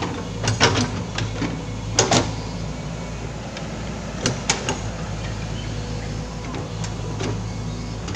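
Foton crawler excavator's diesel engine running steadily under hydraulic load as it digs, with short sharp metallic clanks and knocks from the bucket and digging arm, several of them in quick pairs.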